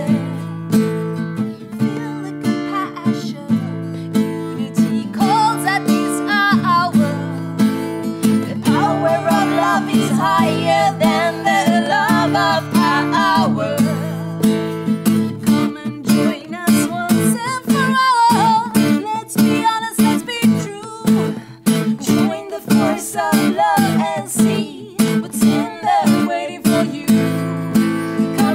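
Acoustic guitar strummed in a steady rhythm, accompanying women singing a melody.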